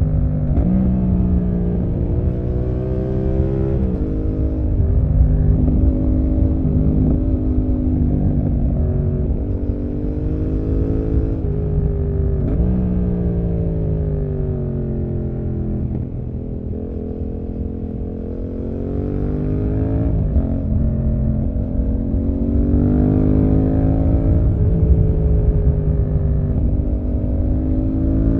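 Yamaha MT-07 parallel-twin engine, fitted with an SC-Project aftermarket exhaust, heard from the rider's seat while riding through curves. The revs climb and fall again and again, with sudden pitch jumps at gear changes and a softer off-throttle stretch past the middle.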